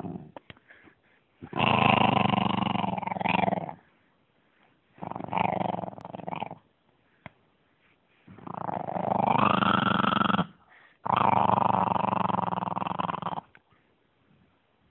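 A dog growling in four long, drawn-out bouts of a couple of seconds each, with short pauses between them; the third bout rises in pitch partway through.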